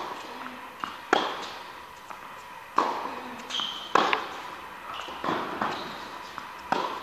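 Tennis rally on an indoor court: a tennis ball struck by racquets and bouncing on the court, a sharp pop about every second or so, each one echoing in the hall.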